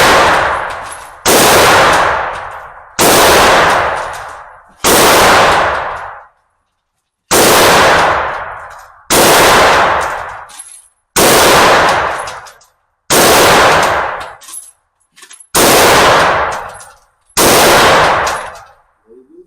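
A 9mm handgun fired slowly shot by shot, about ten rounds roughly two seconds apart, each sharp report ringing on and dying away over a second or more.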